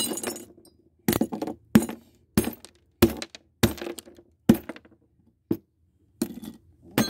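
Claw hammer striking a small glass jar on a wooden board, about nine sharp blows in quick succession with the glass cracking and shards tinkling. There is a short lull a little past the middle before the blows resume.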